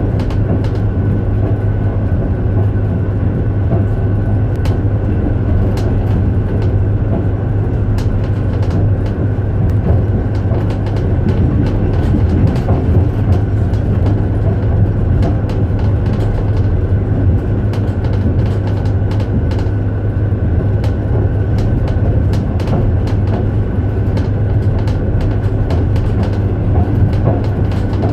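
Long-distance passenger train running at speed: a steady low rumble with frequent irregular clicks and knocks.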